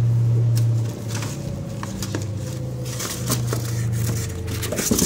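Washing machine motor humming, loud and steady for about the first second, then running in on-off spells of a second or two. Paper and cardboard rustle and tap as a hand rummages in a cardboard box.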